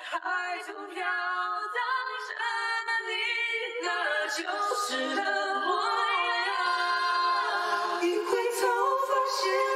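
A man singing a slow Mandarin pop ballad line into a handheld microphone, unaccompanied, voices only with no instruments or drums.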